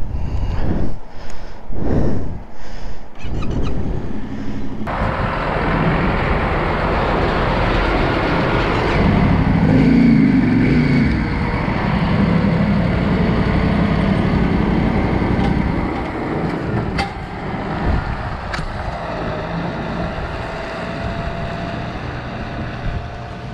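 Traffic noise: a heavy lorry's engine running as it passes close by, loudest about ten seconds in, over a steady background of motor noise.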